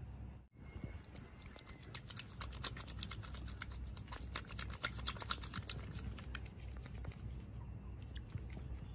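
Wet, soapy hands rubbing shampoo into a lather: a dense run of small squelching clicks that thins out near the end.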